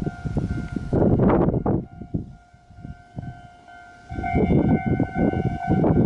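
Japanese railway level-crossing alarm ringing with steady electronic tones while a Kintetsu train passes, its wheels rumbling and clattering on the rails. The rumble eases about two seconds in and comes back strongly about four seconds in.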